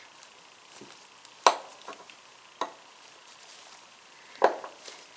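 Sharp clicks and taps of a tiny flathead screwdriver and small parts against a vintage Craftsman ratchet head being reassembled, about five in all, the loudest about a second and a half in and again near the end.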